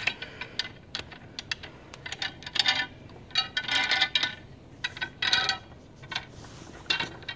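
Hard toy pieces being handled: a run of small clicks and clacks, with short ringing jingles about two and a half, four and five seconds in.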